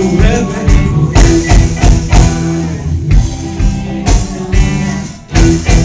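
Live rock band playing loud through the PA: electric guitars, bass and drum kit over a steady beat. The band drops back briefly about five seconds in, then comes back in hard.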